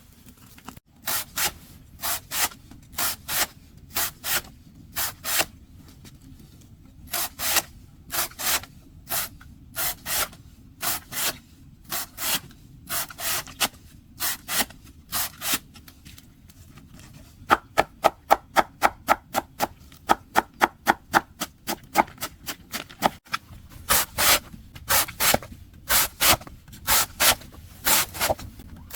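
Rhythmic rasping strokes, about two a second, with short pauses between runs and a faster spell of about five or six strokes a second in the middle.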